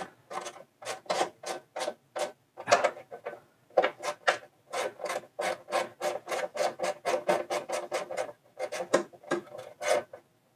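Hand socket ratchet worked back and forth on cover bolts, a run of short rasping strokes about three a second with a short pause partway through.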